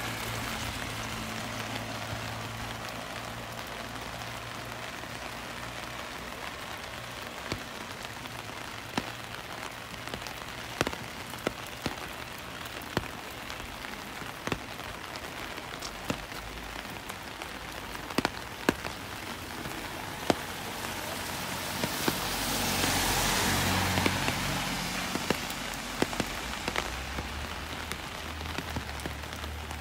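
Steady rain falling, with scattered sharp drops ticking close by. About three-quarters of the way through, a hiss swells up and fades over a few seconds.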